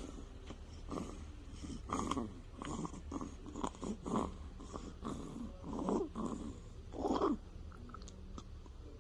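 Newborn baby snoring in her sleep: a string of short, snuffly breaths about one or two a second, the longest and loudest about seven seconds in.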